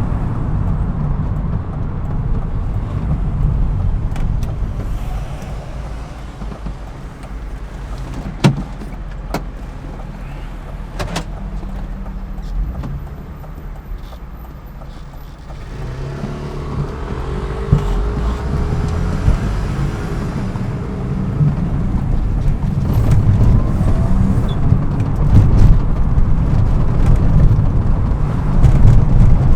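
BMW E36 M3's straight-six engine heard while driving, easing off through the middle and then building louder again toward the end, with a few short clicks along the way.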